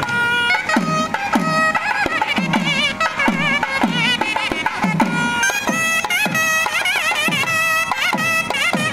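Nadaswaram playing an ornamented melody of gliding, wavering notes over tavil drumming: steady low strokes, each falling in pitch, about one and a half a second.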